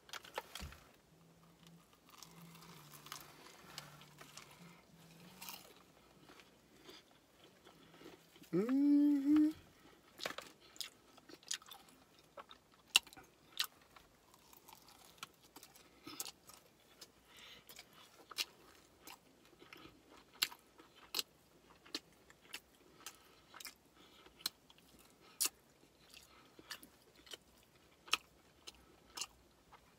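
Close-up crunching and chewing of crusty fried chicken wings: sharp crunches, about one a second from ten seconds on. A short rising vocal 'mm' about nine seconds in is the loudest moment.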